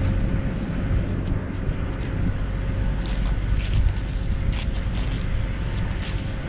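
Wind buffeting the microphone in a steady low rumble, with the walker's footsteps and the rustle of grass and dry fallen leaves as short crisp swishes every fraction of a second.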